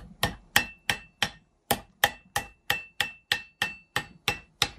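Hand hammer striking a red-hot iron trigger-guard blank on an anvil: quick, even blows about three a second, with a short pause about a second and a half in. Many blows carry a short metallic ring.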